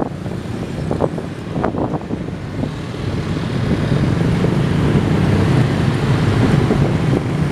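Diesel multiple unit train approaching, its engine rumble growing steadily louder from about halfway through. A couple of short knocks sound in the first two seconds.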